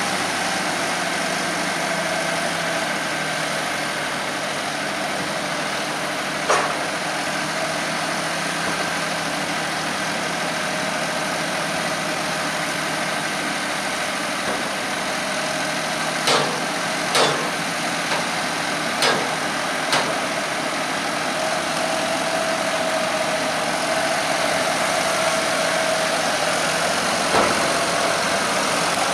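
Fendt 722 Vario tractor's engine running steadily while its trailer is tipped to unload maize, with a whine over the engine. Several sharp knocks cut through, one about a fifth of the way in, a cluster of four or five around the middle to two-thirds mark, and one near the end.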